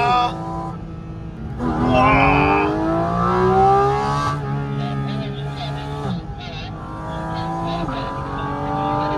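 Porsche 718 Cayman GT4 RS's flat-six engine, whose intake draws air right beside the occupants' ears, heard from inside the car under hard acceleration. Its pitch climbs and then falls sharply at each of about three upshifts.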